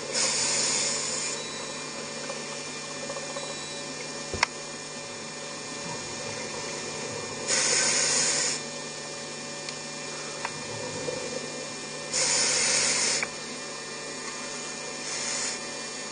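Underwater sound of a scuba diver breathing through a regulator: four bursts of exhaled bubbles about a second long, coming every few seconds over a steady low hum, with one sharp click about four seconds in.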